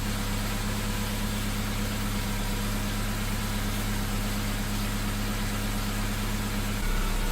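1991 Honda Civic engine idling steadily while a block tester samples the coolant for exhaust gas; the owner suspects a blown head gasket. The hum shifts slightly near the end.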